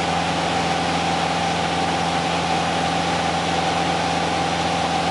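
Piper Warrior's four-cylinder Lycoming engine and propeller droning steadily at climb power, heard from inside the light aircraft's cabin.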